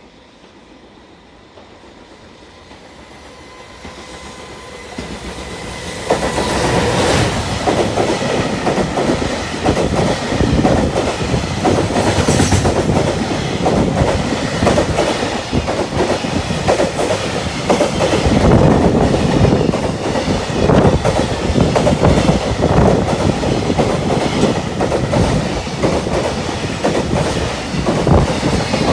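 Freight train approaching and passing at speed. The sound builds over about six seconds, then becomes a loud, continuous rumble with the rapid clatter of wheels over rail joints.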